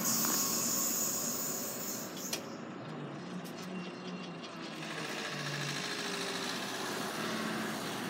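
TGV Euroduplex high-speed train's rolling noise fading as its last coach passes and it draws away. There is a single sharp click about two seconds in, and a faint rushing noise rises again after about five seconds.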